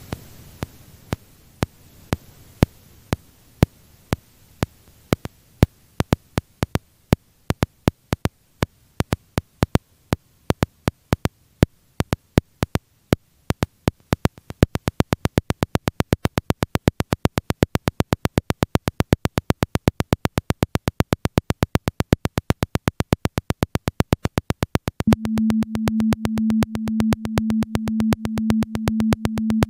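Electronic rhythmic piece from a Max/MSP patch: sharp clicks at several different rates layer into a polyrhythm, sparse at first and growing into a dense interlocking pattern by about halfway. Near the end a low pulsing sine tone enters beneath the clicks.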